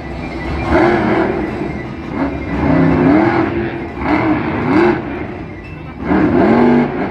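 Monster truck engine revving in repeated bursts, its pitch climbing and falling about four times.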